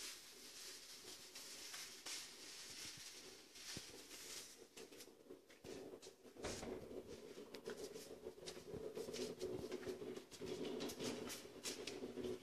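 Faint rustling and small clicks from a handheld phone being moved about while filming, with a steady low hum that comes in about six seconds in.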